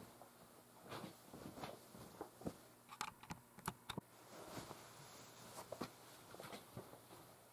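Faint, scattered clicks and light taps at irregular intervals over quiet room tone.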